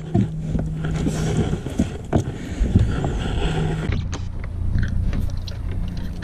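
Knocks and clicks of a bass boat's carpeted livewell lid being unlatched and lifted open, with handling bumps on the deck, over a low steady hum that grows louder about two-thirds of the way in.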